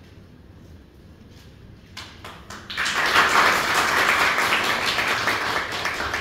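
Audience applause: a few scattered claps about two seconds in, then a burst of steady clapping from about three seconds in that slowly eases off.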